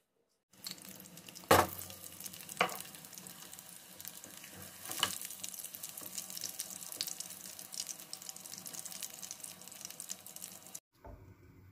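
Garlic clove and a melting cube of butter sizzling in oil in a nonstick frying pan, a steady crackling hiss that starts about half a second in and cuts off just before the end. A wooden spoon stirring knocks against the pan a few times, loudest about a second and a half in.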